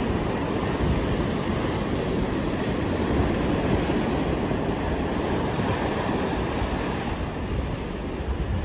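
Ocean surf breaking and washing up a sand beach: a steady rushing noise, heaviest in the low end.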